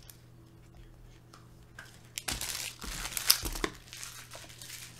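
Packaging crinkling and rustling as it is handled by hand, in a denser run of about a second and a half starting a little after two seconds in, with lighter handling noises before it.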